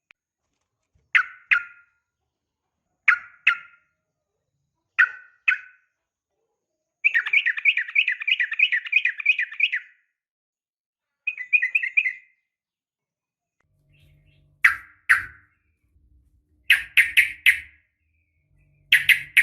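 Yellow-vented bulbul calls. Short double notes come about every two seconds, then a chattering run of about three seconds, then faster groups of two and three notes toward the end.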